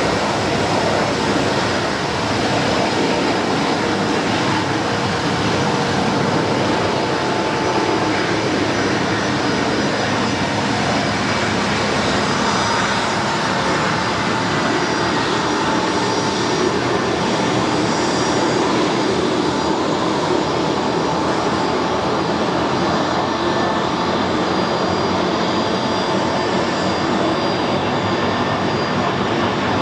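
Bombardier CRJ-200's two rear-mounted GE CF34 turbofans running at taxi power: a steady jet whine and rush.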